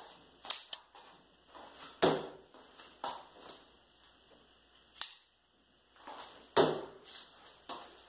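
Thrown folding pocket knives striking a wooden target board: two loud, sharp hits about four and a half seconds apart, with lighter clicks and a fainter knock between them.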